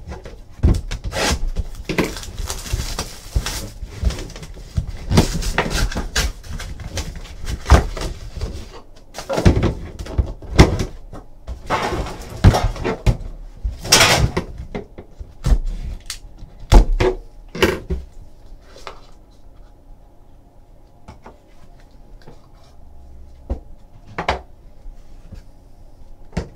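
Packaging being opened by hand: a box cutter cutting and tearing the wrap of a sealed trading-card box, with rustling and sharp knocks of cardboard boxes being handled and set down on a table. It goes quieter for the last several seconds, with only a few taps.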